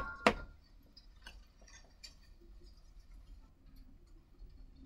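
Two sharp clicks right at the start, a third of a second apart, then faint scattered ticks and light taps of a pencil working on a stretched canvas.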